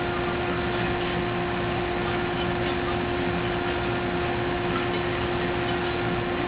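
Steady hum with a constant pitched tone over an even hiss, unchanging throughout.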